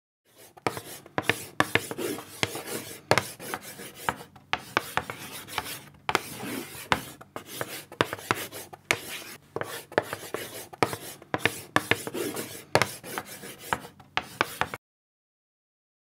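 Chalk writing on a blackboard: quick, irregular scratches and taps. It cuts off suddenly near the end.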